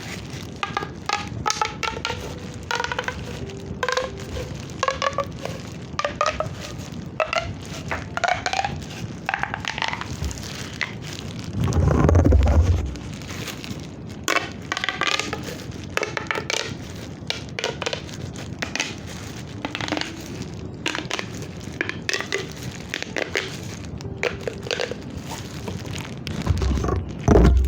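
A hand-held fidget toy being worked by hand: a steady run of rapid clicks and crackles mixed with short squeaks, with a loud low bump of handling about twelve seconds in and another near the end.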